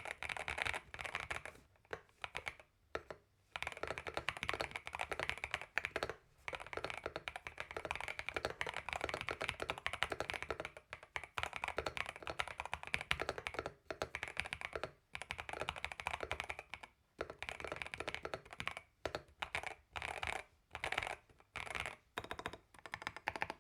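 Typing on an EPOMAKER EK68 65% mechanical keyboard with Flamingo switches and CSA-profile plastic keycaps: quick runs of keystrokes broken by short pauses, with shorter bursts near the end.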